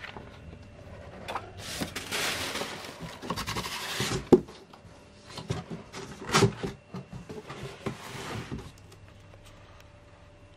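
Paper rustling in bursts as printed sheets are handled, with a few sharp knocks, the loudest about four seconds in, over a faint steady hum.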